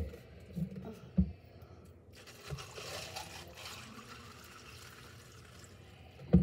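Lemonade poured from a plastic pitcher over ice into a plastic cup, splashing and trickling for a couple of seconds around the middle, with some spilling past the pitcher's loosely fitted cap. A single knock comes about a second in and another right at the end.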